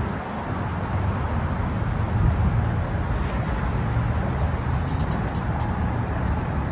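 Steady low road rumble of a moving car.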